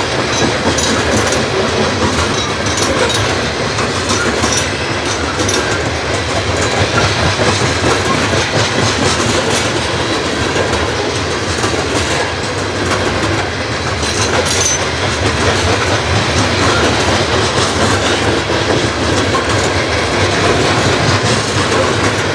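Freight train's cars rolling steadily past, their wheels clacking over the rail joints in a loud, continuous rumble.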